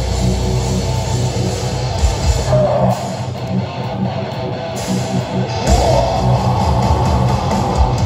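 Metalcore band playing live through a loud PA, with distorted electric guitars over bass and drums. The deep bass and kick drop out for a couple of seconds around the middle, then the full band comes back in.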